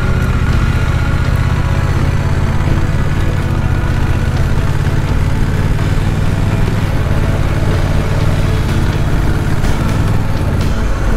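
Honda Rebel 1100's parallel-twin engine and exhaust running steadily while the motorcycle is ridden along.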